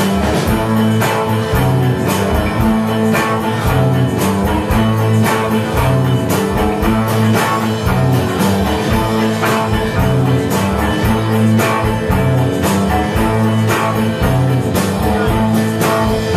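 Live rock band playing an instrumental passage: electric guitars over a drum kit keeping a steady beat, recorded from the audience.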